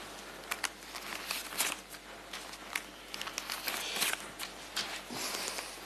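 Rustling with scattered light clicks and knocks, in a small room.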